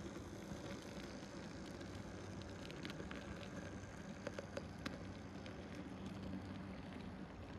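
Z-scale model train running past, a faint steady hum with scattered light clicks, a few of them between about three and five seconds in.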